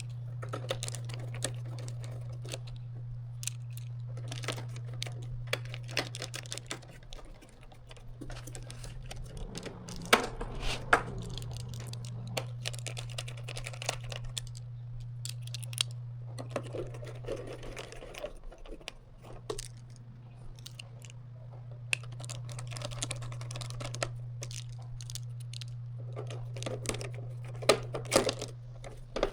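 Screws and small metal parts clicking and rattling as screws are driven back into a spectrum analyzer's metal chassis, over a steady low hum that drops out briefly three times.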